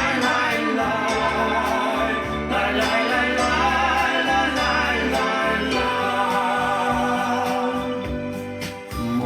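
Music: the instrumental break of a folk ballad between sung verses, a melody line over sustained chords and a steady bass.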